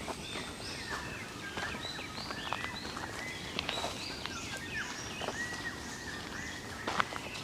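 Several small birds chirping, a busy run of short, quick notes several times a second, with a few sharp clicks among them, the loudest near the end.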